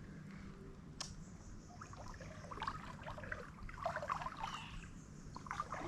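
Faint trickling and lapping of shallow river water, with a few small splashes and clicks.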